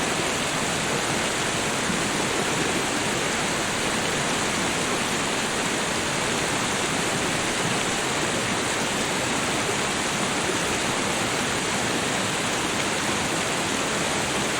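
Small garden waterfall flowing: a steady, even rush of falling water.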